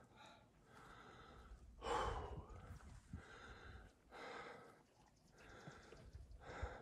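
A person breathing hard, about one breath a second, winded after a steep uphill climb; one louder breath comes about two seconds in.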